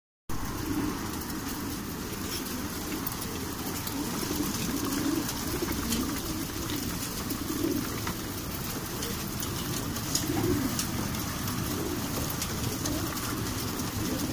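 A large flock of racing pigeons packed in the crates of a transport trailer, cooing together in a continuous low, wavering chorus, with faint scattered clicks.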